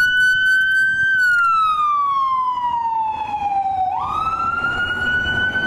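Fire engine siren wailing: the pitch holds high, slides slowly down over about three seconds, then climbs quickly back up about four seconds in and holds again.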